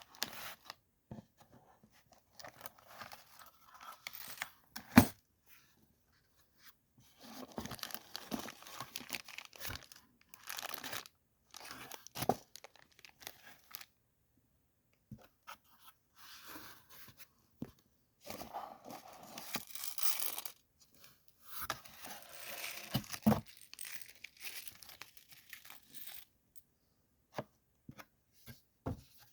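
Packaging being torn and crinkled open in irregular bursts of tearing and rustling with pauses between. A sharp click about five seconds in is the loudest moment.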